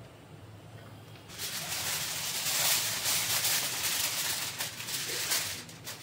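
Aluminium foil crinkling and rustling as it is folded over a piece of meat to wrap it, starting about a second and a half in.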